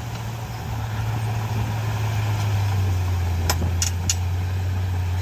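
Bulldozer's diesel engine running with a steady low drone, with three short metallic clanks in quick succession a little past the middle.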